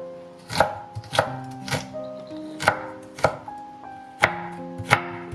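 Kitchen knife chopping shredded fresh ginger on a wooden cutting board: about seven sharp knocks at an uneven pace, roughly one every half second to second. Soft background music holds notes underneath.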